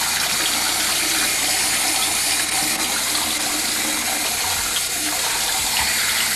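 Bathroom sink tap running steadily, water splashing into the basin.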